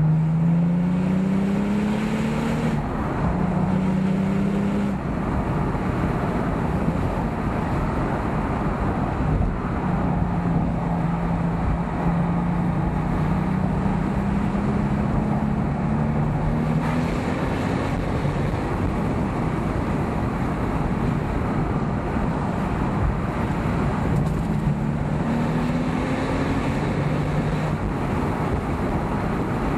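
Porsche 997.2 Turbo's 3.8-litre twin-turbo flat-six on its stock exhaust, heard from the cabin with the top down under wind and road noise. The revs climb and fall a couple of times in the first few seconds as it pulls through the gears, then hold fairly steady, climbing again twice later on.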